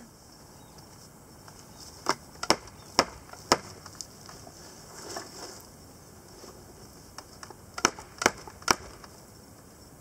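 Homemade wooden sifter box being worked with dirt in it, its frame knocking sharply about twice a second in two runs, four knocks and then three.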